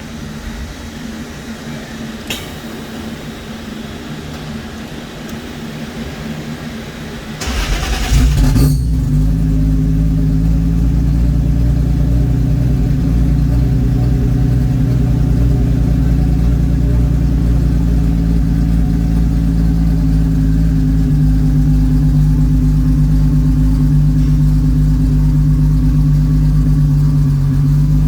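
Turbocharged 1JZ straight-six in a Corolla wagon running on a chassis dyno before its first pull. It idles at first; about seven and a half seconds in there is a brief hiss, and then a much louder, steady drone takes over and holds at one pitch.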